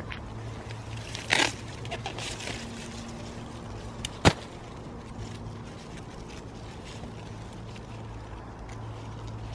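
Sweetcorn cobs being picked off the stalks: a short rustling crackle of leaves and husks about a second in, then a single sharp snap about four seconds in, over a low steady hum.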